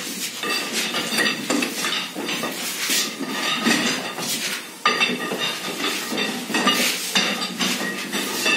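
Steel rods clinking and clanking against house-lifting screw jacks as the jacks are turned, an irregular run of sharp metallic knocks with a ringing edge.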